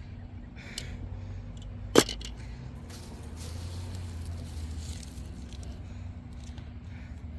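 Digging in garden soil to unearth potatoes: faint scraping and rustling of earth, with one sharp knock about two seconds in.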